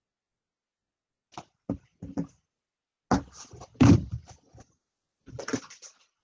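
Computer keyboard keys being pressed as a line of code is deleted: a few sharp clicks about a second and a half in, a denser run of heavier knocks around the middle, and another short run near the end.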